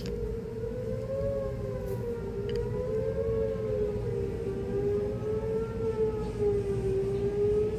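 Siren being tested, holding a sustained tone whose pitch wavers slowly up and down, over a low steady rumble.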